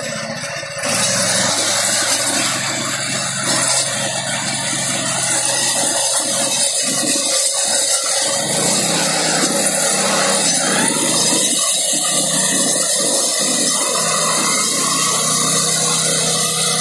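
Neva walk-behind tractor's petrol engine running steadily, driving a Zarya rotary disc mower whose spinning discs cut grass; the noise steps up and gets louder about a second in.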